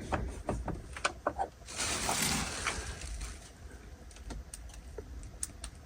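Handling noises: a quick run of light clicks and knocks, then a short rustle about two seconds in, and a few faint clicks after it, over a low steady hum.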